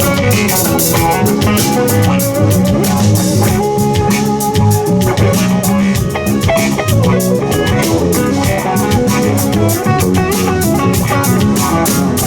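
Live rock band playing an instrumental passage: guitar lines over bass guitar and a drum kit keeping a steady beat, with no singing.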